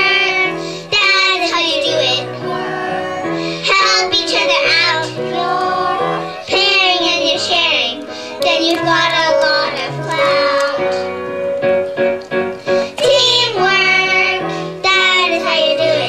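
Children singing a song into a microphone over a musical accompaniment with a steady, stepping bass line.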